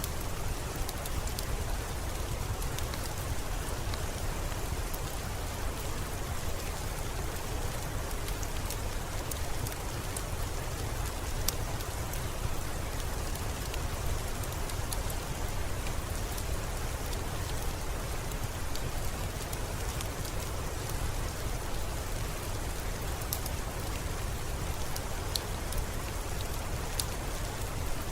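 Steady rain falling, an even hiss over a low rumble, with scattered faint sharp ticks throughout.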